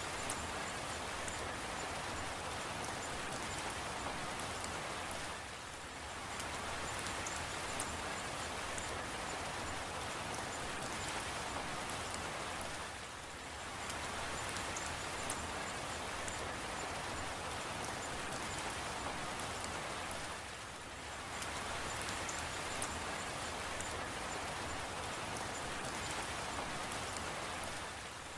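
Steady rain falling, with faint drop ticks in the hiss; the rain eases briefly about every seven to eight seconds, three times, before coming back at full strength.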